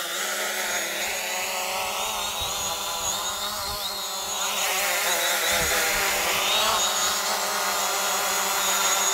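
Hubsan Zino quadcopter drone hovering, its propellers making a whine of several tones. The pitch dips and rises midway through, and the sound grows louder about halfway through as the drone comes lower and closer.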